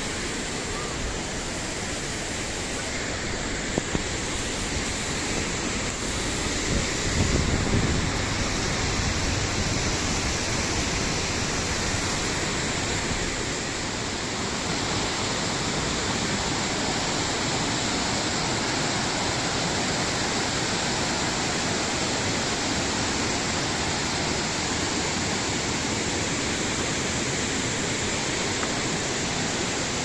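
Steady rush of falling and flowing water from a waterfall and the rocky mountain stream below it, with a brief low rumble about seven seconds in.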